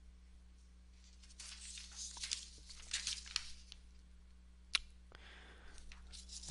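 Faint rustling and crinkling, then a single sharp click about three quarters of the way through, over a low steady electrical hum.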